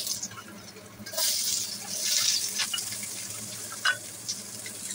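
Sliced ginger, shallots and garlic sizzling as they hit hot cooking oil in a wok; the hiss jumps up about a second in and settles into a steady frying sizzle, with a short knock about four seconds in.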